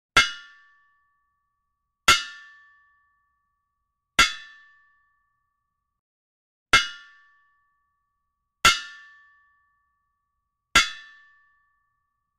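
Hammer striking an anvil: six ringing metallic clangs, roughly two seconds apart, each dying away within about a second.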